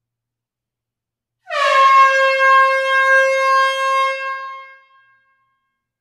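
A horn sounding one long, steady blast of about three seconds, beginning about one and a half seconds in with a slight dip in pitch as it starts, then fading out.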